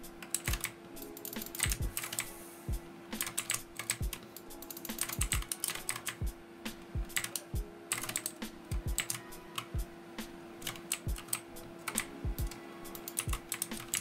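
Mechanical key switches of an E-Element K-9999 gaming keyboard clacking in quick, irregular runs of presses, with a steady low tone underneath.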